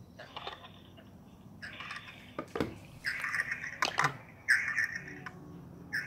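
Three spells of hissing static from the iPhone's speaker while it plays the Swann smart doorbell's live audio feed, with several sharp clicks in between.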